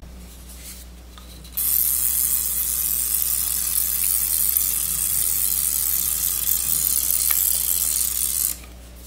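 Stainless-steel pepper grinder grinding black pepper, a steady hiss that starts about a second and a half in and stops shortly before the end.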